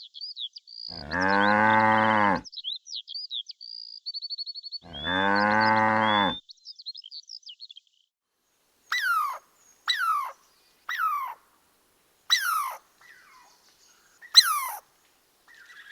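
A cow mooing twice, two long low calls about three seconds apart, with small birds chirping around them. Later, six short high calls follow one another, each sliding quickly down in pitch.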